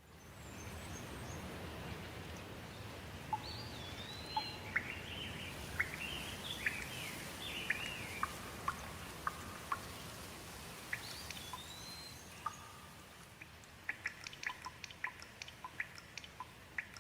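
Steady rain with a songbird singing over it: a string of gliding, whistled phrases through the first half, then a quick run of short chirps near the end.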